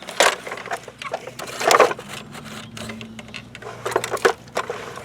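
Plastic toy construction trucks being worked in dirt: irregular bursts of scraping and rattling, the loudest a little under two seconds in and again about four seconds in.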